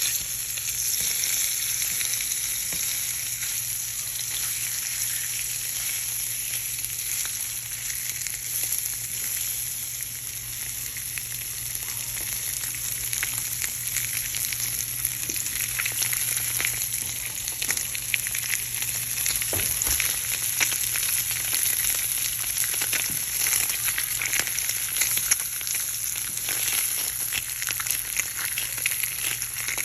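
Ham sizzling in a frying pan: a steady hiss of hot oil with scattered pops and crackles, which come more often from about halfway.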